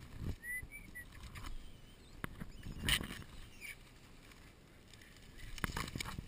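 Young nine-banded armadillos rooting through dry leaf litter and pine needles: irregular rustling and crackling, with a sharper crackle about three seconds in and a cluster of them near the end.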